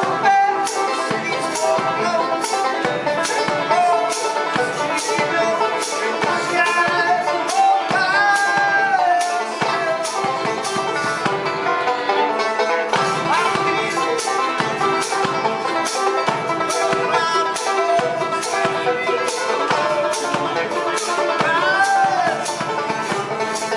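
Acoustic bluegrass band playing live: fiddle, banjo and mandolin together, the banjo picking steadily under the fiddle's melody.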